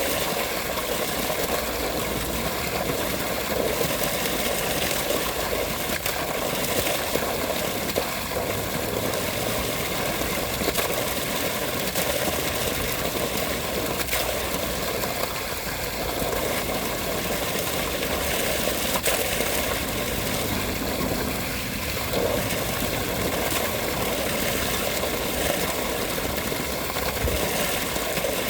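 Steady rushing water, an even unbroken wash of sound.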